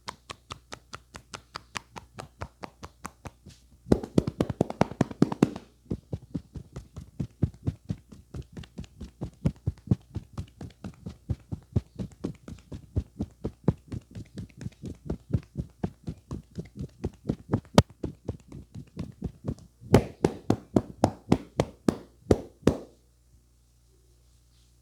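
Rapid rhythmic hand strikes of a percussive head massage, several strokes a second. There are louder, quicker bursts about four seconds in and again around twenty seconds, and the strikes stop shortly before the end.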